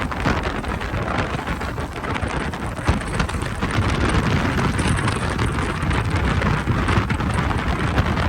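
Wind buffeting the microphone and water rushing and spraying past the hull of a speedboat running at speed, a steady loud rush with a rough crackle through it.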